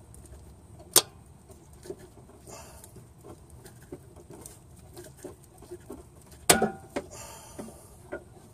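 Hand work at the front of a Honda V6 during timing belt installation: scattered light clicks and rustling as parts and the belt are handled. Two sharper knocks stand out, one about a second in and one past the middle.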